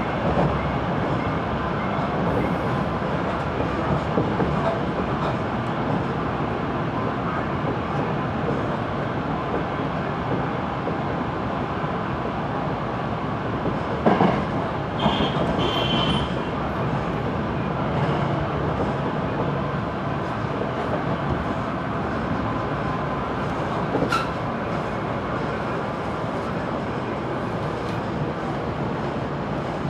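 Electric commuter train running along the line, heard from the front of the train: a steady rolling rumble with small clicks from the wheels. About fifteen seconds in, a level crossing bell rings briefly as the train passes the crossing.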